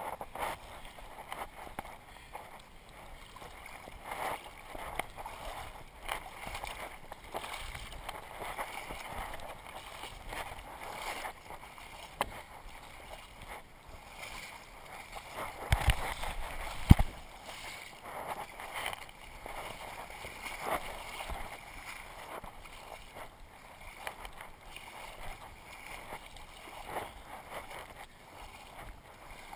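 Water sloshing and splashing as a person wades through a muddy pond, with two sharp knocks about a second apart halfway through.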